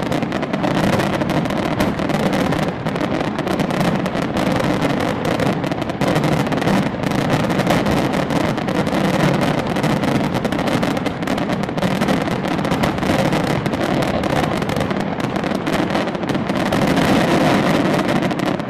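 Fireworks display at full barrage: shells and fountains firing and bursting in a dense, continuous crackle of rapid reports with no pause.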